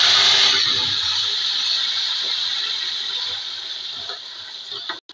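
Ground spinach purée poured into hot oil with browned onions, sizzling. The sizzle bursts up at once, loud at first, then slowly dies down and stops abruptly near the end.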